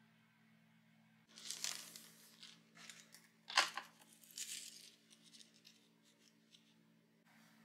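Dry, crisp sheets of roasted nori and their cellophane packet being handled and pulled apart, giving faint irregular crinkling and tearing crackles with one sharp crack about halfway through.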